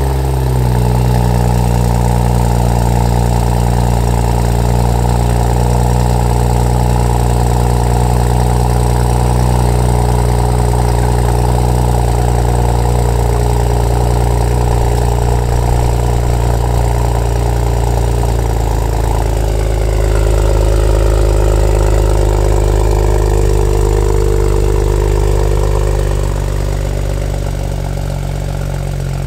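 BMW 335i's N54 twin-turbo inline-six idling just after start-up, heard at the tailpipes through a freshly fitted VRSF 3.5-inch stainless catback exhaust with muffler. The note is steady, shifts about two-thirds of the way through with a slightly louder stretch, then settles a little quieter near the end.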